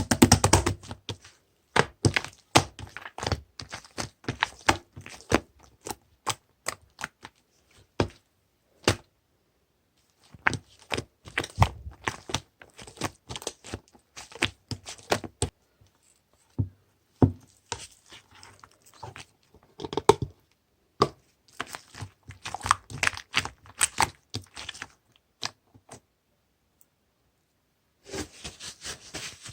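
Close handling sounds: runs of sharp clicks and taps mixed with crinkling and tearing, as of paper or plastic being handled, stopping briefly twice.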